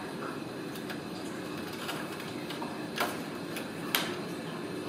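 Kittens' paws and claws clicking and knocking on a hollow plastic toy car, with two sharp knocks about three and four seconds in, over a steady low background hum.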